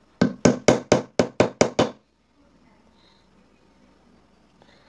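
Eight quick hammer blows on a steel socket used as a drift, driving a bearing into a Bajaj CT100's aluminium crankcase half; the strikes stop about two seconds in.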